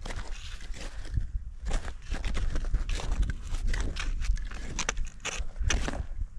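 A hiker's footsteps while walking up the mountain trail: an irregular run of steps and clicks, over a steady low rumble on the microphone.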